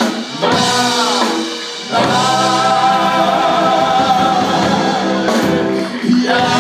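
Live rock band: male voices singing, with a long held note from about two seconds in to about five seconds, over electric guitar and drums.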